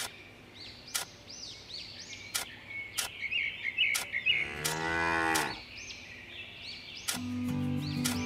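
A cow mooing once for about a second, a little past the middle, over birds chirping and a few sharp clicks; music comes in near the end.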